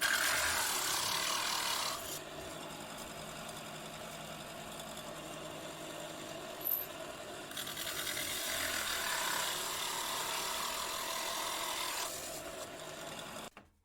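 A 2¼-inch hole saw cutting a circle in wood: a rasping cut for about two seconds, a quieter stretch, then a longer cut from about eight to twelve seconds in.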